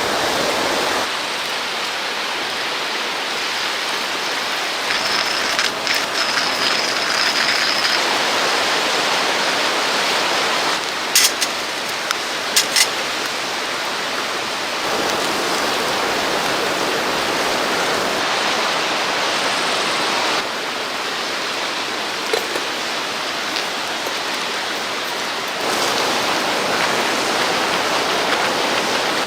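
A river rushing steadily, with its level shifting a few times, and a few sharp clicks about halfway through.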